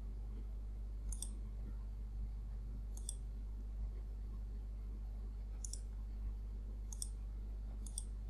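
A computer mouse clicking, about five single clicks a second or two apart as lines are picked and trimmed in a CAD program, over a steady low hum.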